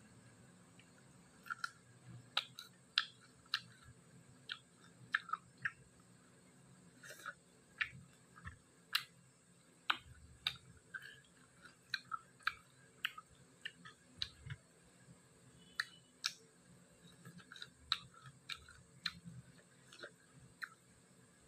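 Eating sounds of someone chewing and biting into pork dry fry: irregular sharp, wet mouth clicks and small crunches, sometimes several in a second.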